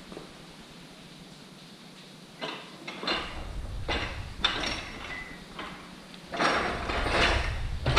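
Metal parts being handled, clanking and clinking in a series of short knocks and rattles that start about two and a half seconds in, with a longer clatter near the end.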